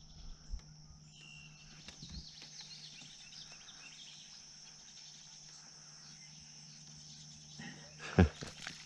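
Steady high-pitched insect drone, with a faint low hum under it. A thump about eight seconds in.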